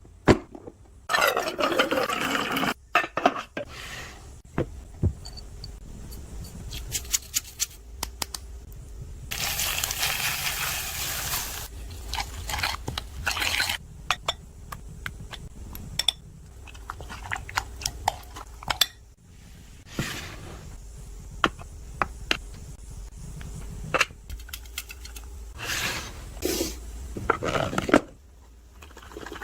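Kitchen sounds of instant noodles being prepared: dishes, pans and utensils clinking, knocking and scraping, with a few longer stretches of pouring liquid or hissing.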